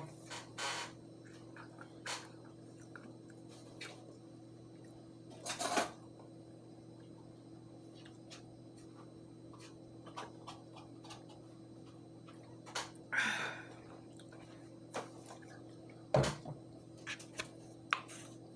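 Sparse eating sounds: scattered clicks and taps of a utensil on a plate, with a short scuffle of a drinking bottle, over a steady low hum.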